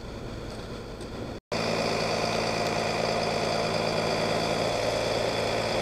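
Motorhome engine running steadily close by. Its hum jumps louder at a cut about one and a half seconds in.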